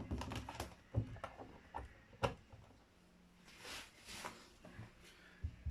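A few faint clicks and knocks from handling a power supply plug being connected to a small electronics project, followed by two soft rustling hisses and a faint steady hum.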